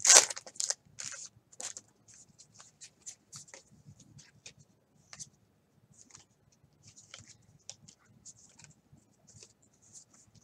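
A 2010 Bowman baseball card pack's wrapper torn open with a crinkle in the first second or so. Then comes the faint rustle and light ticking of the cards being thumbed through one by one.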